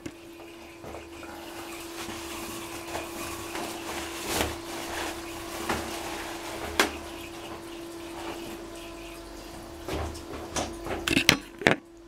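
Balterley Regent toilet's cistern refilling: a steady hiss of water with a single held whine from the fill valve, and a few short knocks and rustles of handling near the middle and just before the end.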